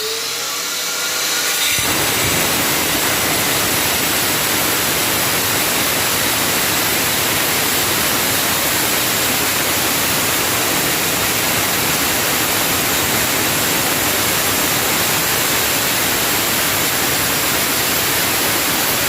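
Angle grinder fitted with a dust-extraction shroud hooked to a vacuum cleaner: it spins up, then about two seconds in the disc bites into the wall cutting a chase, a steady harsh grinding noise with the vacuum running underneath.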